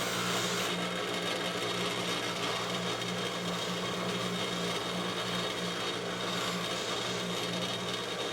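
Electric buffing-wheel motor running steadily with a hum, plus the hiss of a metal divot tool being polished against the compound-loaded wheel.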